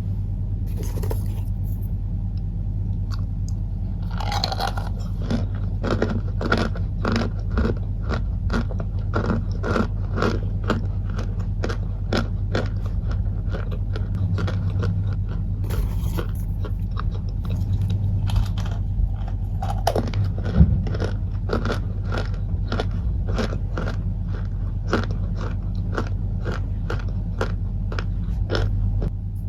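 Cornstarch chunks being bitten and chewed close to the microphone: a crisp bite about four seconds in, then a rapid run of crunching chews, about two a second, with another hard bite near twenty seconds. A steady low hum lies underneath.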